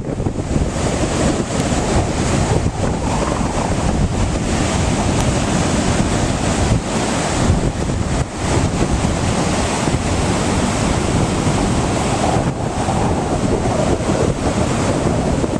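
Ocean waves and surf with heavy wind buffeting the microphone: a loud, steady rushing noise.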